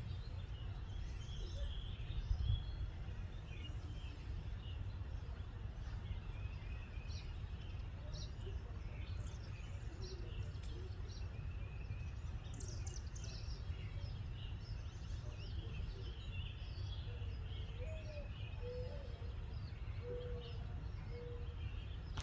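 Birds chirping and singing, many short calls throughout, over a steady low outdoor rumble, with a brief bump about two seconds in.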